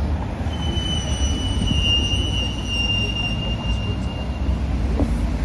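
Low, steady rumble of road traffic. From about half a second in, a high, thin squeal holds for about four seconds, falling slightly in pitch.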